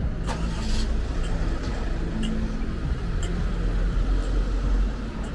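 Street traffic: a motor vehicle's engine running close by, a steady low rumble.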